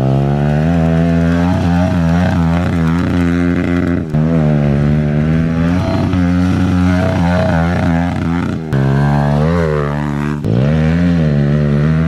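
Pit bike engine revving up and down over and over as the rider works the throttle. The sound breaks off abruptly and picks up again a few times.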